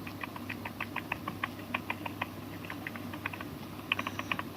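Propeller of a crashed quadcopter clicking irregularly, several light ticks a second that bunch together near the end, over a low steady hum.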